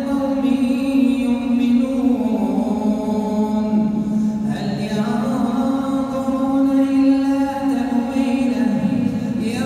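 An imam's voice reciting the Quran in slow melodic chant, holding long drawn-out notes. The pitch slides down and back up twice.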